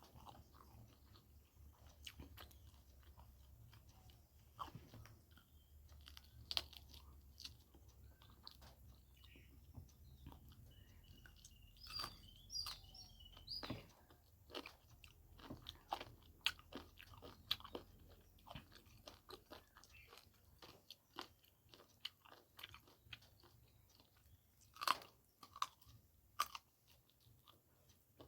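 Close-miked chewing of pork curry and white rice: scattered sharp mouth clicks, busiest around the middle, with a few louder ones near the end.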